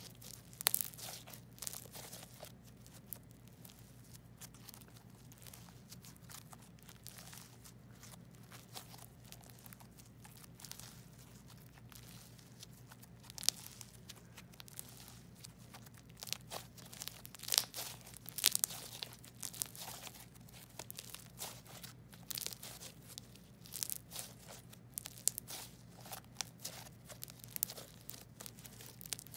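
Peachybbies Aurora jelly cube slime being stretched, folded and squeezed by hand, giving irregular sticky crackles and small pops, in denser clusters now and then.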